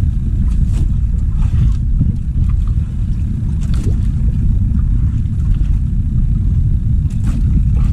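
Wind buffeting the microphone on an open boat at sea: a steady, heavy low rumble, with a few faint ticks.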